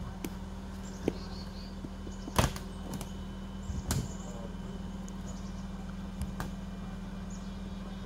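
Heavy machine engine running at a steady low drone, with a few sharp knocks and clacks on top, the loudest about two and a half seconds in.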